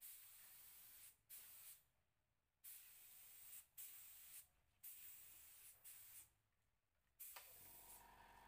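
Compressed-air spray gun hissing in about seven short trigger bursts, each a second or less, with brief pauses between, as wood finish is sprayed. Near the end a steady low hum sets in.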